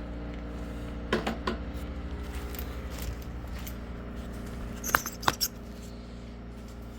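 Small metal parts or tools clinking against each other in two short clusters, about a second in and again about five seconds in, over a steady low hum.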